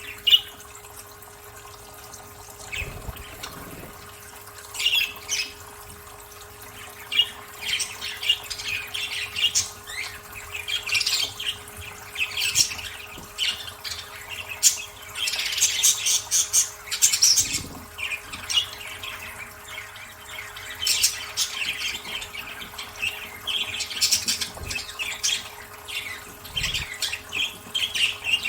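Budgerigars chirping and chattering in a rapid, irregular string of short high calls, with water splashing as they bathe.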